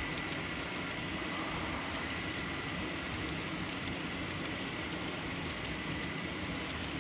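Model diesel train running on the layout: a steady rolling noise with a thin, steady high whine and no distinct knocks or changes.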